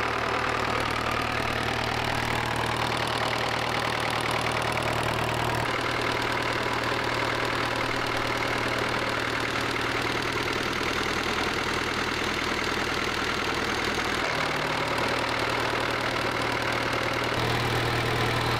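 Sabb M4 marine diesel engine running steadily at idle with a fast, even beat, its note shifting slightly a few times. It is running smoothly on its rebuilt mechanical injector pump and new electric lift pump.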